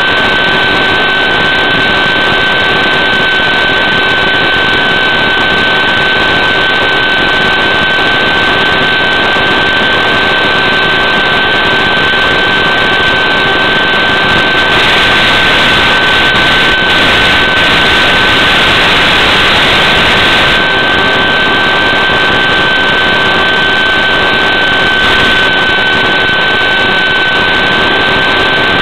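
Electric motor and propeller of a Dynam Hawk Sky RC plane running at steady cruise throttle, heard through the analog FPV video link: a steady high whine over constant hiss. About halfway through the hiss grows louder for several seconds.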